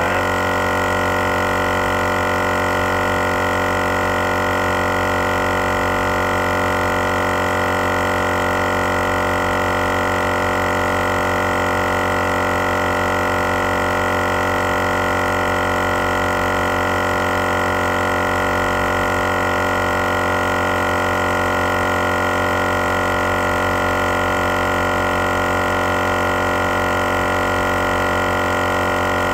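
GSPSCN dual-cylinder 12V portable air compressor running steadily under load, pumping a truck tire up through about 30 psi. It is a constant drone that holds its pitch throughout.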